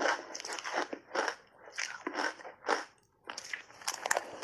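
Crunching and chewing of a big mouthful of pink shaved ice heaped with milk powder: crisp crunches about twice a second, a brief pause about three seconds in, then a couple of sharper cracks as chewing resumes.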